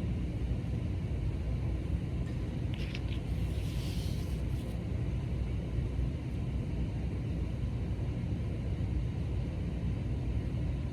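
Steady low rumble of background noise, with a brief faint rustle about three seconds in.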